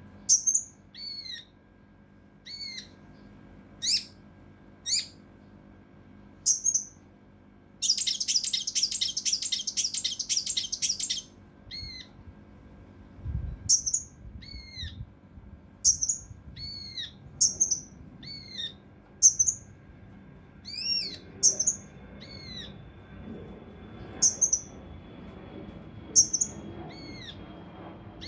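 Kinoi (cucak rante mas) singing: short, sharp, downslurred whistled calls repeated about once a second. A dense, fast burst of rapid notes lasts about three seconds, a third of the way in.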